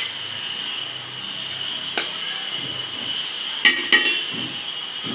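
Serving spoon clinking against a metal cooking pot as rice is scooped out: one clink about two seconds in, then two close together near four seconds, over a steady high-pitched whine.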